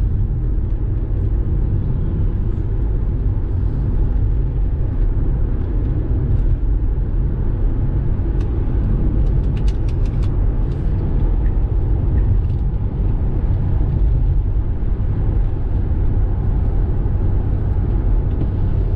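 Steady low rumble of tyre and road noise heard inside the cabin of a Tesla Model 3 electric car driving along at speed, with no engine note.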